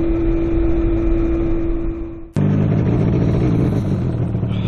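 Honda CB750 motorcycle's inline-four engine running at a steady note. A sudden cut a little past two seconds in gives way to the engine running at a lower, deeper note.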